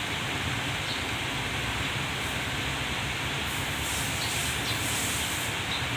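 Steady background rumble and hiss at an even level, with no distinct events.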